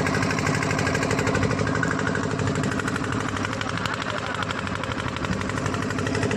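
A fishing boat's engine running steadily with a fast, even chugging.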